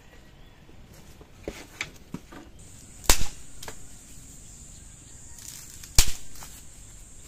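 Blade chopping firewood: two sharp cracks about three seconds apart, with a few lighter knocks and snaps before them.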